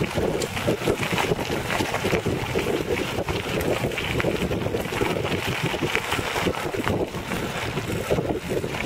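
Recumbent cycle's tyres rolling over a gravel road, a steady crunching rush with many small clicks and rattles, under wind buffeting the microphone.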